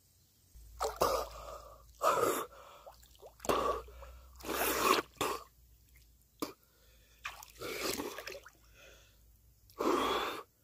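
A man catching his breath after holding it underwater: a series of about seven heavy gasps and blowing exhales, mixed with water splashing and dripping off him as he surfaces.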